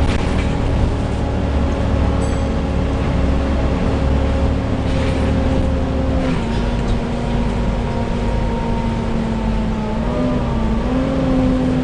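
Volvo B7TL double-decker bus's engine cooling fan making a steady hoover-like whine over the low engine and road rumble, heard inside the bus. About six seconds in the whine steps slightly lower in pitch, and it wavers briefly near the end.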